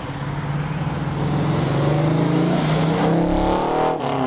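1967 Plymouth Barracuda's freshly built 340 V8, through headers and mufflers, accelerating: its engine note climbs steadily for about three seconds, with a brief break near the end.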